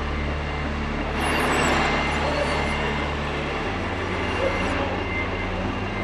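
Low, steady diesel-style engine sound from RC scale construction machines at work, its note shifting a little past halfway, over background crowd noise.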